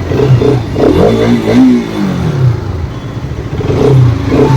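Motorcycle engine running under way, revving up and easing off about a second in, then settling back to a steady hum.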